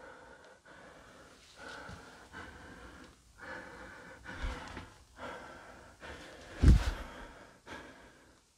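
A person breathing heavily close to the microphone, a series of long breaths in and out. One much louder burst comes about two-thirds of the way through.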